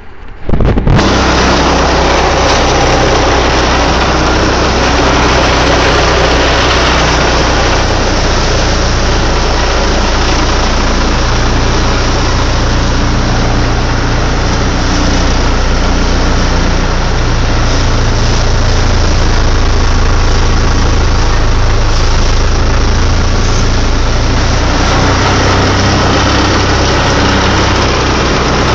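A boat's engine running loudly and steadily with a low drone, over the rush of water and wind.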